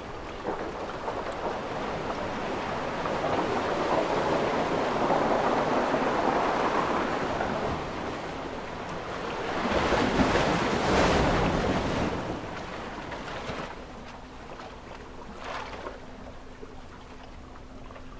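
Ocean waves washing in, two swells: one building over the first few seconds and easing off around eight seconds in, a second louder one breaking around ten to twelve seconds in, then a softer wash.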